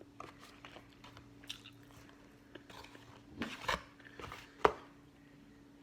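A person chewing and biting hash browns close to the microphone: scattered crunches, a cluster of them about three and a half seconds in and the loudest, sharpest crunch a second later.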